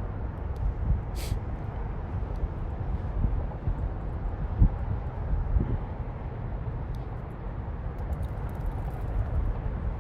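Outdoor ambience: a steady low rumble that swells and dips, with a few soft knocks, a short hiss about a second in and faint ticks near the end.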